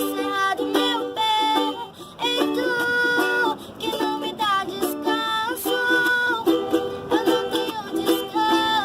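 Music with a plucked string instrument playing a melody and chords in a steady rhythm.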